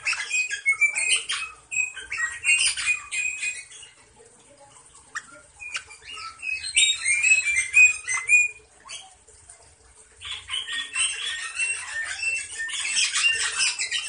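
Rosella parakeets in a wire cage flapping their wings and giving short, high chirps in scratchy bursts, with two quieter pauses in between.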